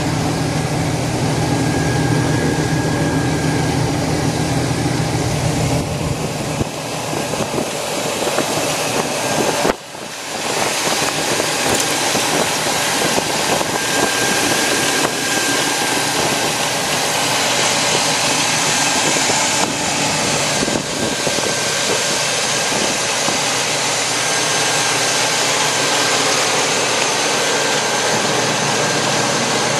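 The rebuilt engine of a 1999 Chevrolet Silverado 1500 idling steadily, heard up close in the open engine bay, with a faint steady whine over the running. A deep low hum in the sound drops away about seven seconds in.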